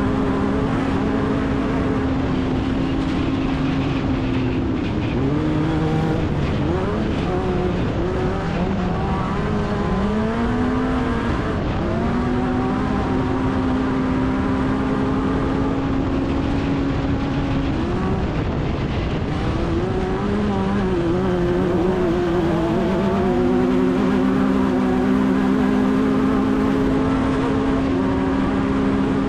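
Off-road race car engine heard from onboard, held at high steady revs over a rough noisy background. Twice, about a third and about two-thirds of the way through, it drops and climbs back repeatedly as the throttle is lifted and reapplied through corners and bumps.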